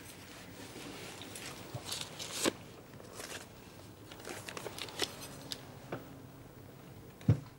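Soft rustling and scattered light clicks of small objects being handled by hand, with a dull thump near the end.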